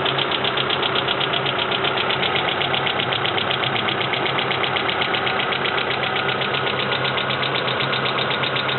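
Mitsubishi Lancer 9 engine idling with a rapid, even ticking from the hydraulic valve lifters. It is the lifter knock left after a timing belt replacement, when the crankshaft and camshaft were turned without oil-pump pressure; the owner considers such a knock permissible.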